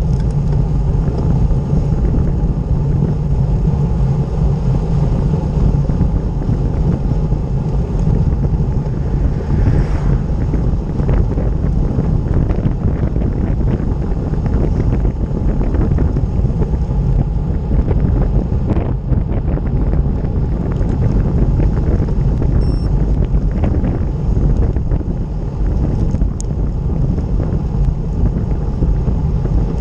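Steady wind buffeting the microphone of a camera on a road bike moving at speed, with faint ticks here and there.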